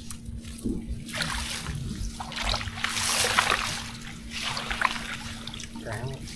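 Water splashing and trickling, loudest around the middle.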